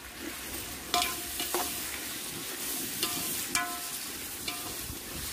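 Steel ladle stirring a sizzling onion-tomato masala in a large aluminium pot, knocking against the pot about five times, each knock ringing briefly.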